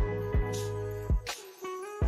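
Background music: a steady bass line and held chords, with a few drum hits.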